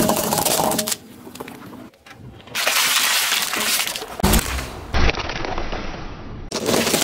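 A series of objects crushed under a car tyre in short clips that cut abruptly one to the next: hard plastic and candy cracking and crunching, the foil and plastic capsules of Kinder Surprise eggs crackling, with a couple of sharp snaps, and a plastic toy bursting and squirting liquid.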